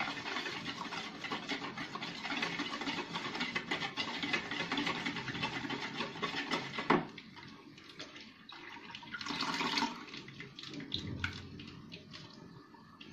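Wire whisk beating gram-flour batter thinned with buttermilk in a bowl, a steady run of quick wet scraping strokes. About seven seconds in it goes quieter, with more buttermilk poured in from a packet near the end.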